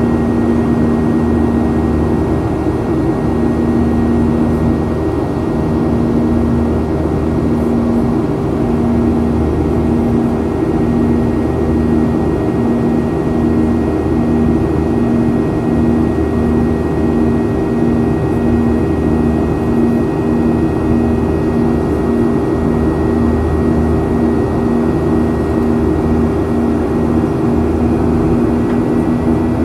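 Boeing 737-800 cabin noise during the climb after takeoff: the CFM56-7B jet engines drone steadily at climb power behind a constant airflow rush. A low hum throbs about one and a half times a second under a faint high whine.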